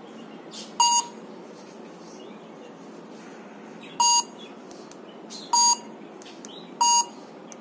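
Afanda ZKC-3501 handheld Android terminal's barcode scanner giving four short, identical beeps at uneven gaps of one to three seconds, each beep the confirmation of a successful QR code or barcode read.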